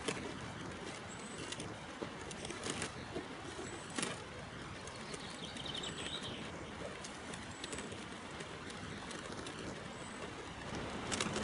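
Quiet outdoor ambience with birds calling: a pigeon cooing and short high chirps every second or two, with a few soft knocks.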